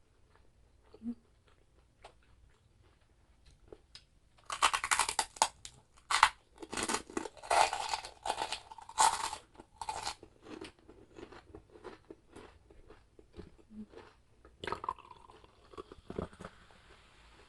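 Close-miked chewing and crunching of chicharabao, crispy fried carabao skin. A run of loud crunches comes about four and a half seconds in and lasts to about ten seconds in, followed by softer chewing clicks.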